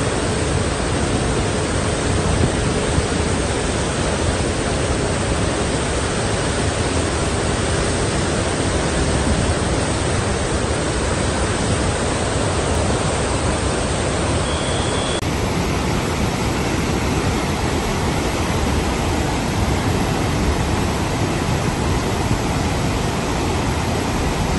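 Silt-laden floodwater rushing out through the open spillway gates of Pandoh Dam: a loud, steady rush of water with no let-up.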